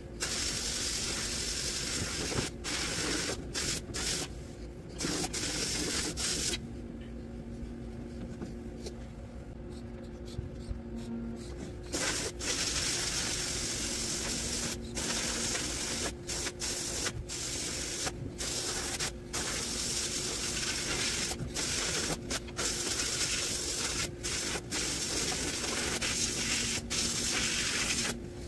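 Sandblasting cabinet's blast gun hissing as abrasive strips old rust and paint off steel reel-mower parts, stopping and starting in short bursts as the trigger is released. A pause of several seconds near a third of the way in leaves only a low steady hum.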